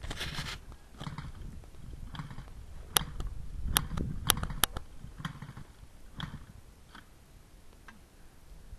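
Dry brush crackling and twigs snapping, with dull footfall thuds, as a dirt bike is pushed uphill by hand through scrub; a cluster of sharp snaps comes about three to five seconds in. No engine is heard.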